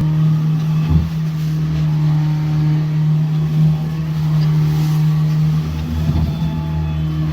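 A boat engine running at a steady speed with a constant low drone. There is a short knock about a second in.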